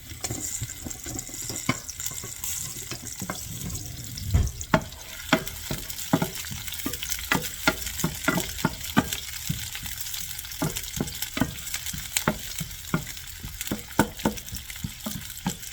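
Diced onion sizzling in hot olive oil in a pan, stirred with a utensil that clicks and scrapes against the pan many times at an irregular pace.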